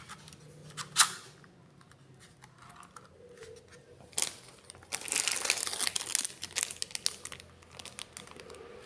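A couple of sharp clicks from the plastic drone body and battery being handled. From about five seconds in, a clear plastic bag holding a USB charging cable crinkles steadily as it is handled.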